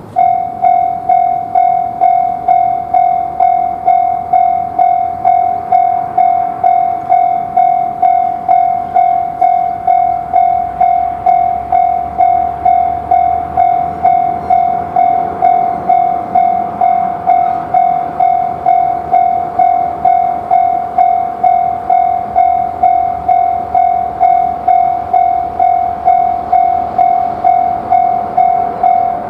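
Japanese level-crossing warning bell ringing the 'kan-kan' alarm that signals an approaching train: one ringing tone struck nearly twice a second, each stroke fading before the next. It starts suddenly and keeps an even pace throughout.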